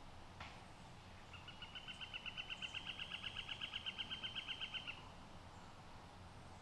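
A bird singing one trill of evenly repeated notes, about eight a second, starting about a second and a half in and lasting about three and a half seconds.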